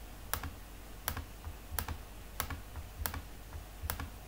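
Clicking at a computer: sharp single clicks, unevenly spaced at roughly one or two a second, over a faint low hum.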